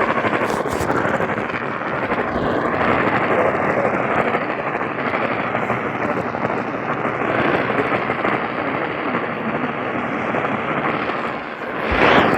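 Steady hiss of static from a weather radio receiver, with one short louder burst near the end.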